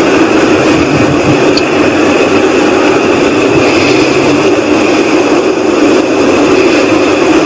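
Unexplained loud, steady drone in the night sky, a sound between a whooshing and a rumbling, holding level with no change. Locals deny it is aircraft noise.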